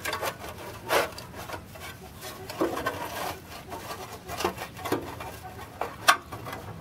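Rusty steel blower shroud of a Briggs & Stratton model 14 engine being wiggled and pulled loose by hand: scraping and rubbing with scattered knocks, and a sharp clank about six seconds in.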